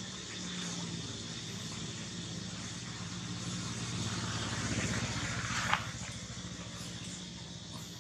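A motor vehicle engine running steadily in the background with a low hum. It grows a little louder a few seconds in, and a single sharp click comes about two-thirds of the way through.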